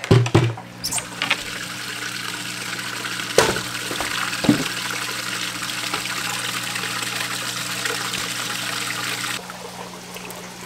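Water splashing and trickling steadily in a minnow bait tank with PVC circulation pipes, over a steady low hum, with a few knocks from handling gear. The splashing stops near the end.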